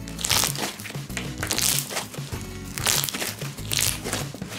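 Homemade slime being squeezed and stretched by hand, giving off irregular crackling, snapping pops as trapped air bursts, a few sharp pops every second or so, over background music.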